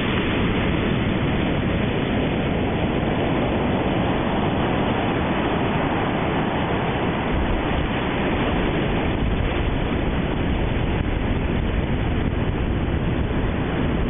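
Ocean surf breaking on a sandy beach: a steady rushing noise, heaviest in the low end.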